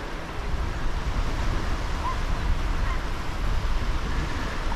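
Wind buffeting the microphone over the steady wash of waves breaking on the shore.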